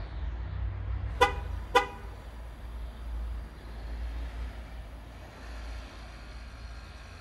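A pickup truck's horn gives two short chirps about half a second apart, a little over a second in, over a low steady rumble.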